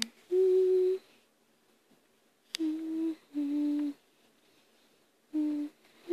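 A person humming a slow tune softly: four held notes, each about half a second long, separated by pauses and stepping down in pitch, with a sharp click about two and a half seconds in.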